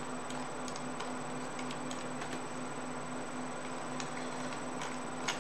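Scattered light clicks of a computer mouse, a few irregular clicks a second apart, over a steady low hum.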